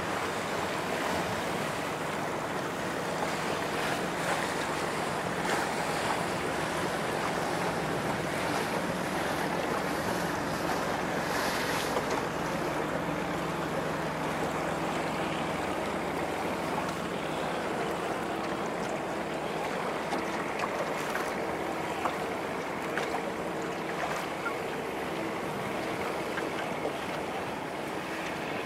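Steady rush of water and wind, with a faint low hum underneath that shifts a little higher about two-thirds of the way through.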